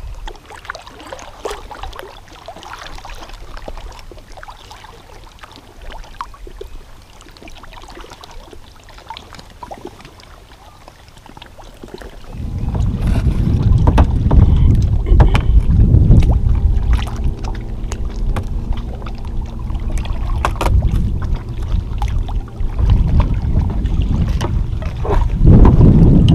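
Kayak on open lake water: water lapping and small splashes and knocks from the paddle and hull, then from about halfway strong wind buffeting the microphone with a loud low rumble.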